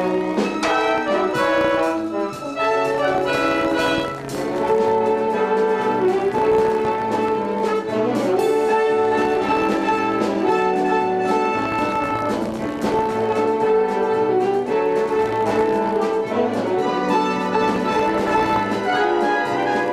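Orchestral music with brass to the fore, playing without a break.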